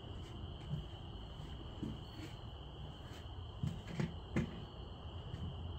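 Crickets trilling steadily in a high, even pitch, with a few soft knocks a little past the middle.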